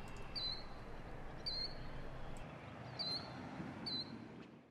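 A small bird giving four short, high chirps about a second apart over a steady outdoor background hiss, fading out at the end.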